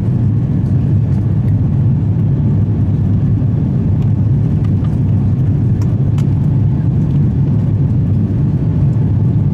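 Steady low rumble of cabin noise inside an Airbus A350-900, the airflow and engine noise heard from a passenger seat, with a few faint ticks about four and six seconds in.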